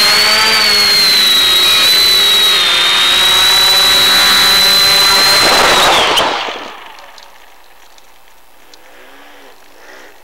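The X550AIOP quadcopter's motors and propellers running loud and steady with a high whine, heard through the FPV downlink audio, then dying away about six seconds in as the quadcopter sets down in the grass and its motor current drops to idle.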